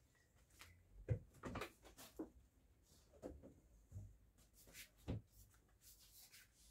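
Faint, scattered knocks and clicks of kitchen cookware and utensils being handled, several light knocks over a few seconds in a quiet room.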